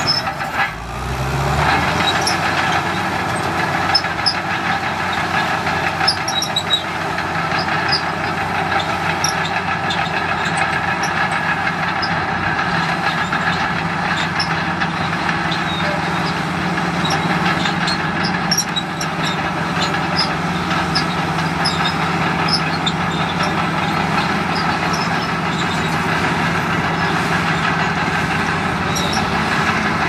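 Komatsu D65PX crawler bulldozer's diesel engine running under load as it pushes soil. About a second in the engine note dips and then climbs in steps to a steady pitch, and light scattered clanks from the steel tracks run over it.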